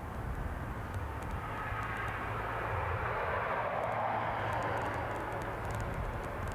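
A passing container ship's engine rumbling low and steady, with a broad rushing noise that swells to its loudest about four seconds in and then fades.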